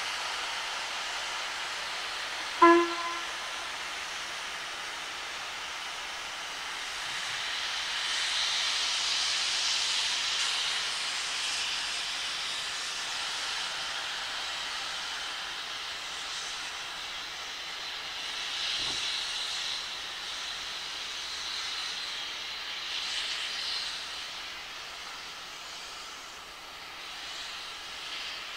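A steam locomotive gives one short whistle toot about two and a half seconds in. Then comes a continuous hiss of steam venting from its open cylinder drain cocks, swelling and easing off twice.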